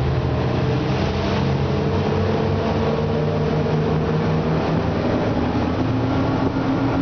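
Twin Suzuki 250 hp V6 four-stroke outboards at full throttle, accelerating the boat from a standstill toward top speed; the engine note climbs gradually as speed builds.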